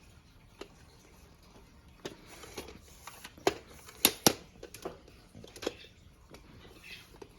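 Irregular sharp clicks and knocks from handling an extendable selfie-stick phone tripod as its telescoping sections are pulled out, the loudest a quick pair about four seconds in.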